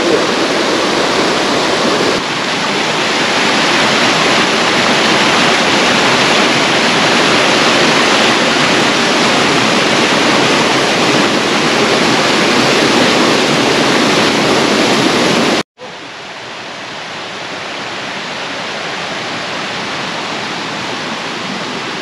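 Steady rushing of water falling down a cascade of the Ripaljka waterfall on the Gradašnica river. About three-quarters of the way through, the sound cuts off for a moment and comes back as a quieter, steady rush.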